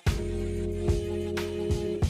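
Background music with a steady drum beat and held bass and chord notes.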